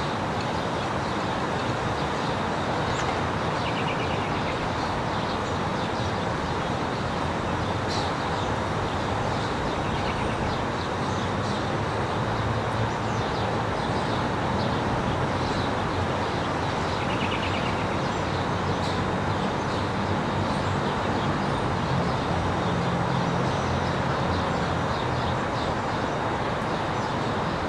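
Car driving at steady speed: an even rush of tyre and wind noise.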